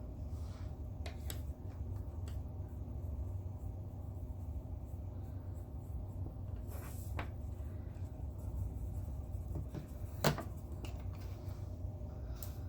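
Steady low hum with a few faint clicks and taps from makeup palettes and brushes being handled. The sharpest click comes about ten seconds in.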